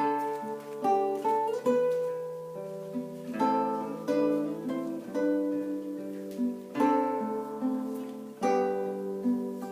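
Solo guitar playing a tune: plucked melody notes and chords ringing out and decaying over a low bass line, with a stronger stroke every second or two.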